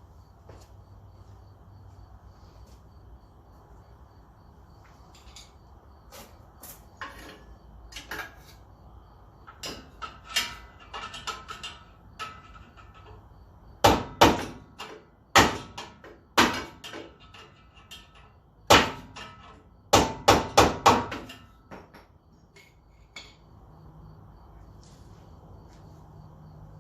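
Hammer striking metal under the car, working at a stuck bolt wedged beside the exhaust that is holding the rear axle up. Light clinks and taps come first, then about nine sharp blows, spaced at first and then a quick run of four.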